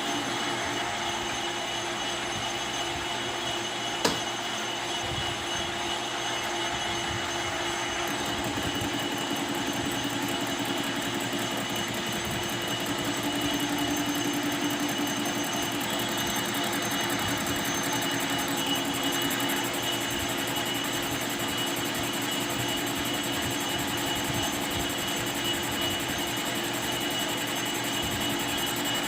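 Metal lathe running steadily with a constant whine, and a single sharp click about four seconds in.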